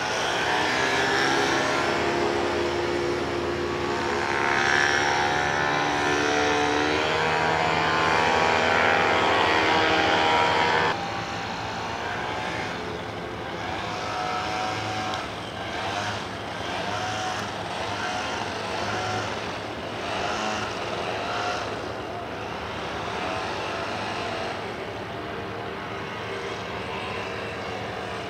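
Powered paraglider's paramotor engine and propeller droning as it flies past, its pitch sliding up and down. About eleven seconds in the sound cuts abruptly to a quieter engine drone whose pitch wavers.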